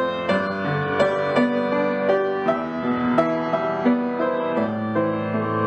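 Background piano music: a slow melody of struck notes, about two a second, over held lower notes.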